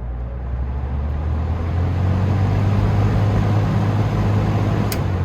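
Vintage Air King PL20P box fan, with three metal blades and a Westinghouse motor, starting up on high speed: a low motor hum and a rush of air that build over the first two seconds, then run steady. There is a sharp click about five seconds in.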